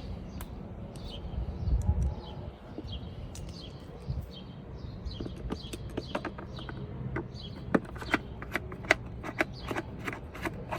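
Irregular light clicks and taps of hand work on a plastic AC evaporator box as screws go back in. The clicks come more often from about halfway through.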